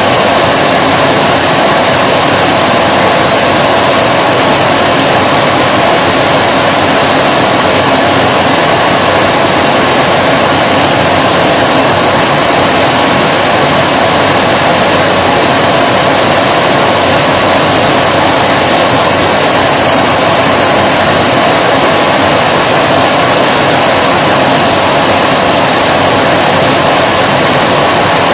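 Vacuum cleaner running steadily, a dense whooshing motor-and-airflow noise with a faint steady whine in it.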